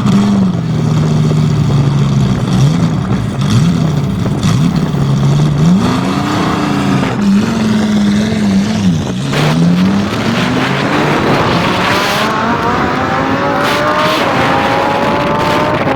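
Benelli TNT 135 motorcycle's small single-cylinder engine being revved up and down in repeated swells. After that it climbs steadily in pitch as the bike accelerates away, running again after its repair.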